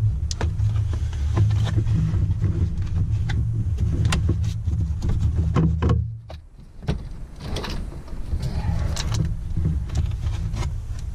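Plastic dashboard trim being worked loose by hand: scattered clicks, knocks and rattles of the panel and its clips, over a steady low hum that drops out for about a second midway.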